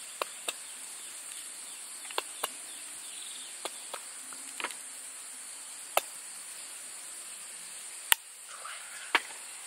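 Steady high-pitched drone of insects, with about ten sharp clicks and taps of a spoon and a sauce bottle against small bowls, the loudest near the end.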